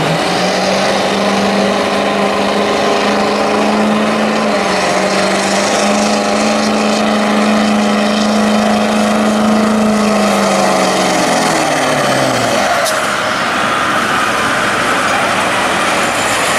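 Diesel pulling truck's engine running hard at high, steady revs under load, then the revs fall away over about two seconds, leaving a high whine near the end.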